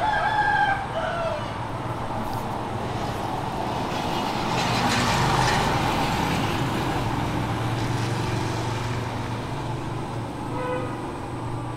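Passing road traffic: a steady low hum under a vehicle that passes, loudest about halfway through, with a few short tones near the start.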